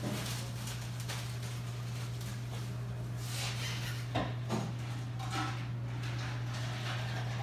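Restaurant room tone: a steady low hum with scattered faint clatter of dishes and two short knocks about four seconds in.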